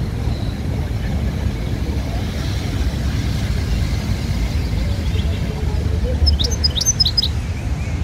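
A small caged songbird gives a quick run of about six high, sharp chirps near the end, over a steady low background rumble with faint voices.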